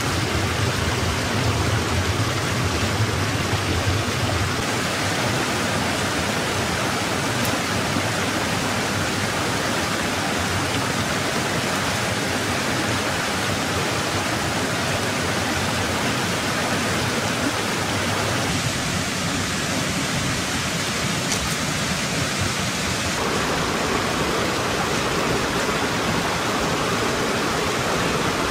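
Shallow rocky stream running over stones, a steady rushing of water.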